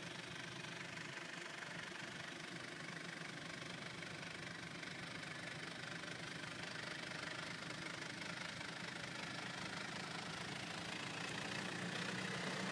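Diesel engine of a Mitsubishi Pajero 4x4 idling with a steady clatter as the vehicle creeps down a steep gravel slope, slowly getting louder near the end as it comes closer.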